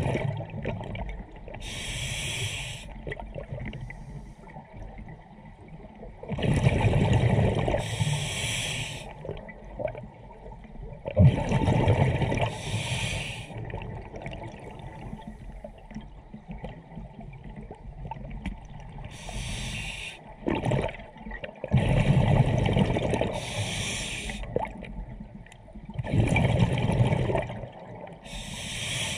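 Scuba diver breathing through a regulator underwater: hissing inhalations alternate with rumbling bursts of exhaled bubbles, about every five seconds.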